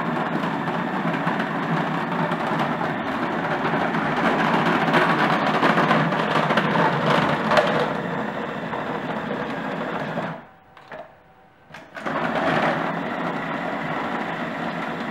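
Food processor motor running with its plastic dough blade, churning lard-and-flour pastry dough as it binds together. The motor stops for about a second and a half about two-thirds of the way through, then starts again.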